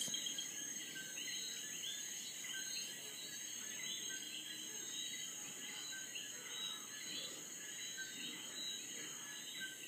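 Night chorus of coquí frogs: many overlapping two-note 'co-kee' calls repeating without pause, over a steady high-pitched drone.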